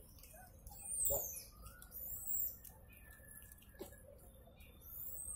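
Birds chirping: short, high calls sliding downward, repeated several times. A couple of soft knocks, the loudest about a second in.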